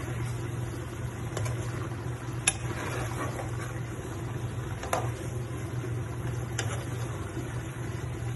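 A metal ladle stirring chicken adobo in a frying pan, its edge knocking against the pan in a few sharp clicks, over a steady low hum.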